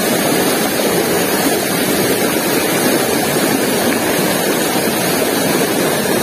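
River water flowing fast over rocks: a steady, even rush of water.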